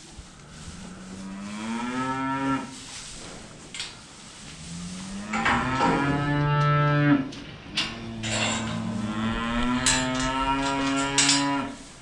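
Charolais cow mooing: three long moos, each rising in pitch, the last about four seconds long, as she calls for her newborn calf.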